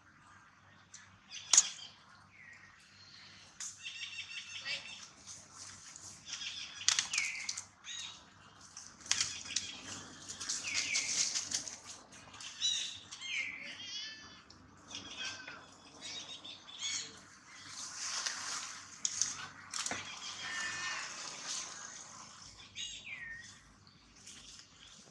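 Short high chirping calls every few seconds over stretches of rustling noise, with a couple of sharp clicks.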